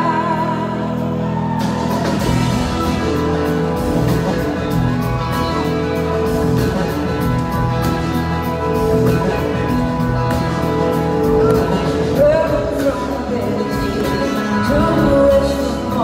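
A live band playing a soul-rock song with drums, sustained chords and electric guitar, a woman singing lead over it at times. The drums come in about a second and a half in.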